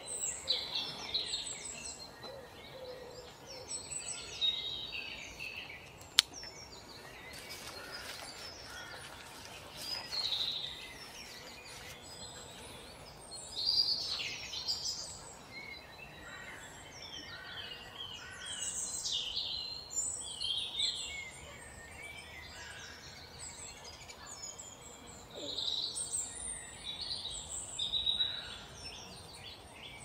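Several small woodland birds calling and singing, with short high chirps and twitters overlapping in bursts. A single sharp click comes about six seconds in.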